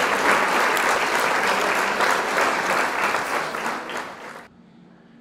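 Crowd applause, many hands clapping densely; it fades out and stops about four and a half seconds in, leaving quiet room tone.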